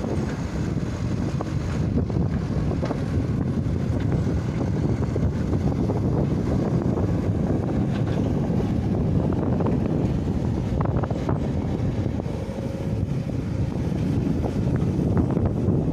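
Wind buffeting the microphone: a steady low rumble, with a few faint knocks here and there.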